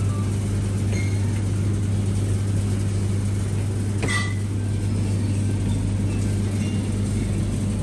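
Steady low hum of supermarket refrigerated display cases and ventilation, with a faint click about four seconds in.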